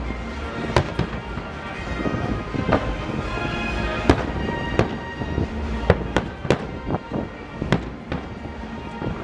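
Aerial fireworks shells bursting: about ten sharp bangs at irregular intervals over a low rumble, the loudest about four seconds in.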